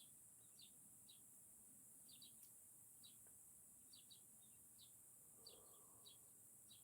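Faint, short high-pitched bird chirps, scattered irregularly about once or twice a second and sometimes in quick pairs, over near silence.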